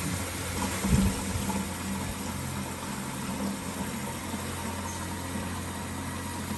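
Small water-filter pump humming steadily while filtered water streams from a thin tube into a plastic bottle, the water cloudy with tiny air bubbles from a new filter cartridge. A short low bump about a second in.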